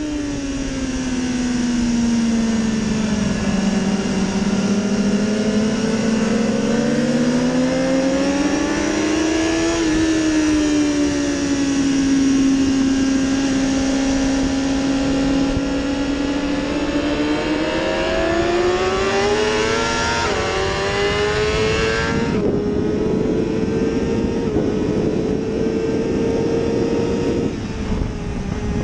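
BMW sportbike's inline-four engine at race pace, heard onboard: its pitch falls and climbs through corners, with quick upshifts around twenty seconds in. It then holds high over strong wind rush on the straight at about 240 km/h, and drops near the end.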